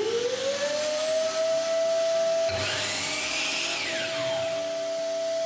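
Shop vac on the drop saw's dust port switching on with the saw's power switch, its motor whining up to speed and then running steadily. About two and a half seconds in, the DeWalt drop saw's motor is triggered briefly, with a whine that rises and then falls away as it winds down, while the vacuum keeps running.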